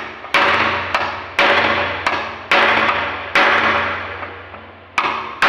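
Hammer blows on a steel chisel driven into the metal bottom roller fitting of a sliding glass door: about five heavy strikes roughly a second apart with lighter taps between. Each blow rings on and fades over about a second. The fitting is seized and broken and is being cut off so it can be replaced.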